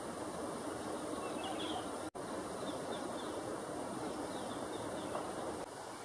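Steady outdoor background hiss, with faint short high chirps of small birds a few times. The sound drops out for an instant about two seconds in.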